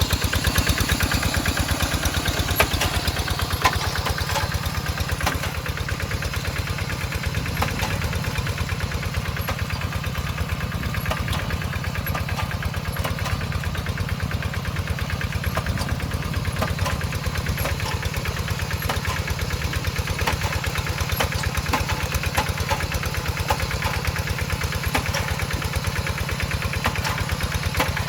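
Kubota RD85DI-2s single-cylinder diesel engine on a Quick Zeva G3000 hand tractor, running steadily with an even chugging beat of firing strokes.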